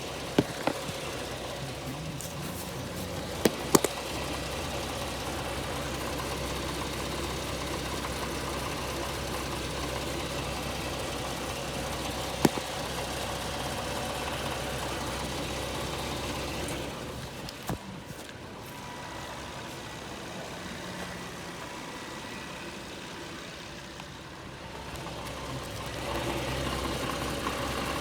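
2011 Infiniti G37x sedan's V6 engine running steadily, with a few sharp clicks in the first few seconds and single ones about halfway through and a little later. The engine sound drops quieter for a while and rises again near the end.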